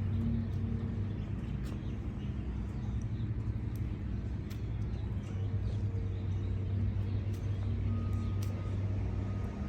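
Steady low drone of a vehicle engine running, with a few faint ticks and a thin short beep that sounds twice near the end.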